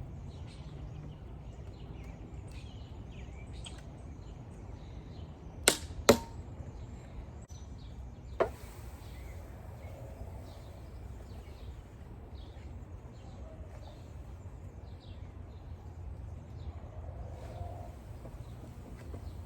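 Three sharp knocks from the bee package being worked open: two close together about six seconds in and a third about two seconds later, over a steady low outdoor rumble.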